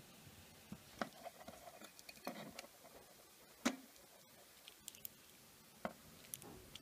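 Faint clicks and knocks from handling a small quadcopter as its plastic XT30 battery plug is pushed together and pulled apart, a few scattered ticks with the sharpest a bit over three and a half seconds in.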